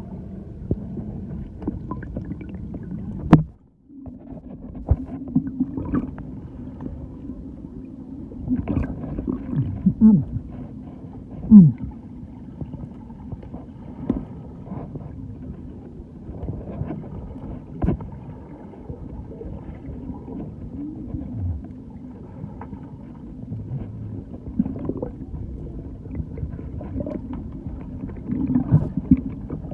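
Muffled, gurgling water, typical of a camera in the water or inside a waterproof housing, with scattered knocks and clatters. The sound drops out briefly after about three and a half seconds, then carries on.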